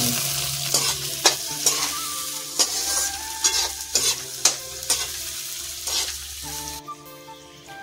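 Diced potatoes, onion and green chilli sizzling in hot oil in a steel kadhai, stirred with a metal slotted ladle that scrapes and clinks against the pan every half second or so. The sizzle cuts off suddenly about a second before the end.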